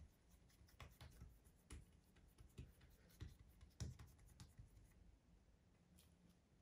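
Faint, soft pats and taps of fingers pressing a ball of yeast dough flat on a countertop, a few irregular taps a second, dying away about five seconds in.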